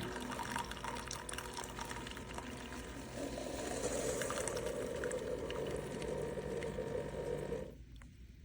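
Keurig K-Supreme single-serve coffee maker brewing: its pump runs while coffee streams into a mug. The sound grows fuller about three seconds in, then cuts off sharply shortly before the end.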